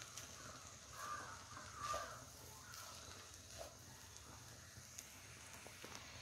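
A crow cawing faintly, four caws about a second apart that die away about three seconds in. A few light clicks of a wooden spatula against a nonstick pan.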